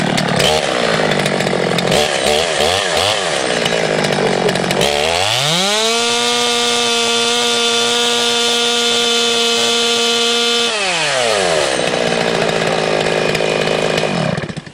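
Top-handled professional chainsaw idling unevenly, then held at full throttle for about five seconds with its PowerSharp chain running against the bar-mounted sharpening stone to sharpen it. It drops back to idle and is switched off near the end.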